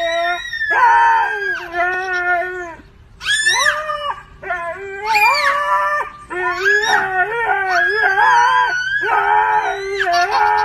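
A husky howling in long, drawn-out notes that rise and fall in pitch, with a young child's voice howling along; the two voices overlap for much of the time, with short breaks between calls.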